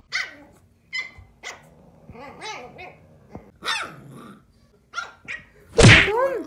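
A pug puppy and an American Bully puppy play-fighting, giving a series of short puppy yaps and barks, the loudest near the end.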